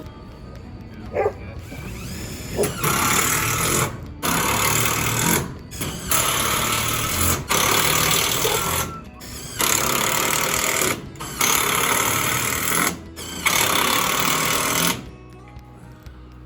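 Power driver sinking screws through metal siding panels in about eight bursts of a second or so each, with short pauses between them.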